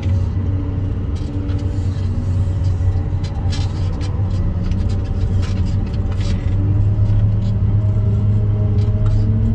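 Wheel loader's diesel engine running under load, heard from inside the cab as a steady low drone. Short rattles and clicks from the machine come through now and then.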